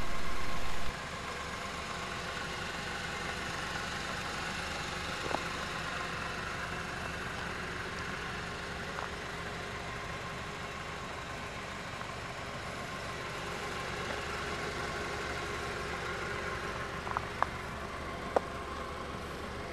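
Car engine idling steadily, with a few short clicks over it. The sound drops in level about a second in.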